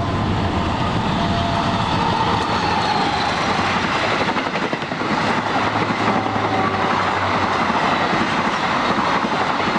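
An Indonesian KAI passenger train passing close at speed: its diesel-electric locomotive goes by within the first few seconds, then the coaches' wheels run over the rails in a steady, loud rush of rumbling noise.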